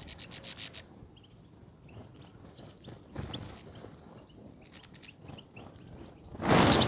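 European goldfinch sounds: a quick run of short, sharp high notes at the start, then scattered brief chirps. A loud burst of noise comes about six and a half seconds in.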